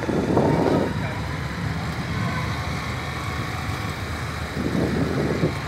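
Outdoor street ambience: a steady hum of road traffic, with indistinct voices briefly at the start and again near the end.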